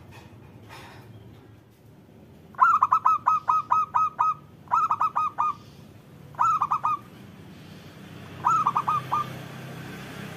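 Zebra dove (perkutut) cooing: four phrases of quick, short repeated notes. The first, about three seconds in, is the longest at some nine notes, and the others have three to five notes each.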